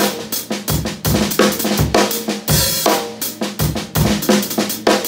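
Drum kit played in a steady groove with bass drum, snare and a Zildjian ZBT hi-hat, a budget sheet-bronze cymbal pair keeping time over the kick and snare.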